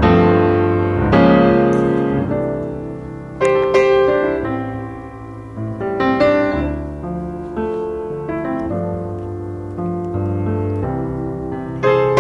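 Background piano music: sustained chords and melody notes, struck and left to ring.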